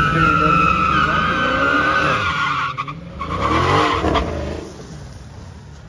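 Dodge Challenger doing a burnout: its tyres squeal in a steady high screech over the engine for nearly three seconds. The engine then revs up and down a couple of times and drops to a lower, quieter running sound near the end.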